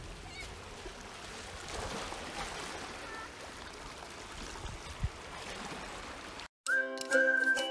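A steady rushing noise, like running water, that cuts off abruptly about six and a half seconds in; cheerful music with a whistled tune starts right after.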